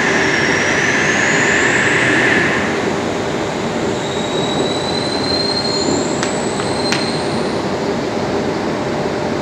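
Sydney Trains electric train moving past at the platform: a steady rumble of wheels on rail with thin high squealing tones that rise in pitch early on and again in the middle. A few sharp clicks come about two-thirds of the way through.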